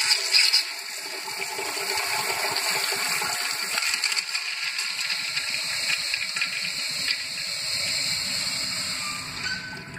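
A urinal, thought to date from 1993, flushing: water rushes and hisses through the bowl at a steady level, then tapers off near the end.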